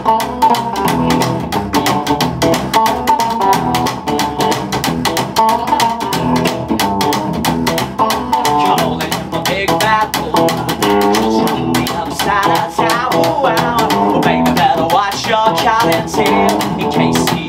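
Upright double bass and electric guitar playing a song together as a duo.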